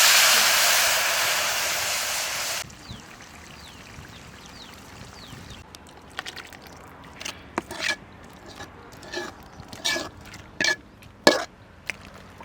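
Food sizzling loudly in hot oil for about two and a half seconds, then cutting off abruptly; a scattering of light clicks and ticks follows later.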